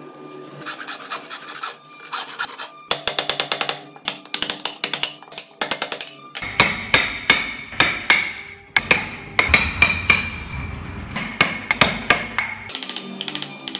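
Hand-tool carving on a solid wood model car body: a rapid run of sharp rasping and scraping strokes from a file and a chisel working the wood, several a second.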